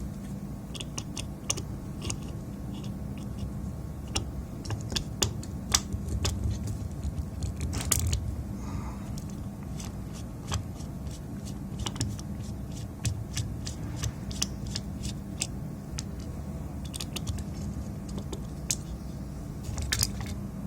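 Small irregular clicks and taps of hand tools against a PS4 power supply circuit board as a component is desoldered and lifted off, over a steady low hum.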